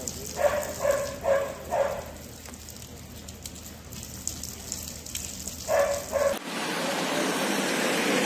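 A dog barking: four quick barks, then two more about four seconds later. Near the end, a steady hiss cuts in abruptly.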